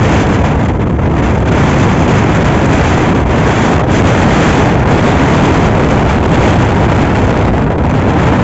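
Strong storm wind buffeting the microphone in a loud, steady rush, over choppy water with waves breaking and splashing against the bank.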